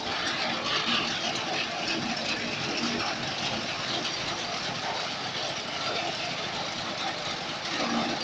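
Small engines of self-propelled crop reapers running steadily as the machines drive and turn.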